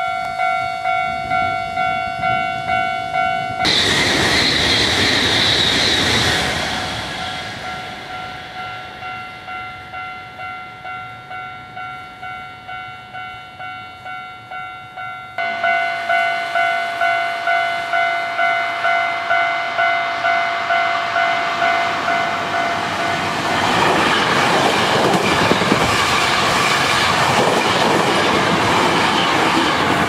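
Japanese level-crossing warning bell ringing steadily at about two strokes a second. A brief rush of train noise comes over it about four seconds in, and over the last six seconds a Hankyu Series 9300 electric train passes at speed, its wheel and running noise rising over the bell.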